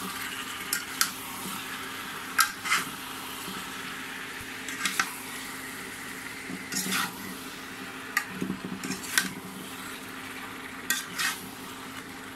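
A spatula scraping and knocking against a black iron karai (wok) as cubed squash is stirred in hot spiced oil, about a dozen uneven strokes over a steady low sizzle of frying.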